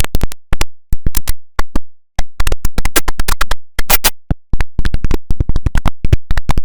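Digitally chopped, stuttering edit of a computer system sound, likely the OS/2 Warp 3 shutdown sound: a rapid, irregular run of very short clipped fragments broken by brief gaps.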